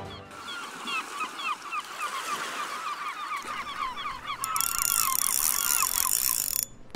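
A flock of birds calling all at once, many short overlapping calls. A hiss joins about two-thirds of the way through, and both cut off suddenly just before the end.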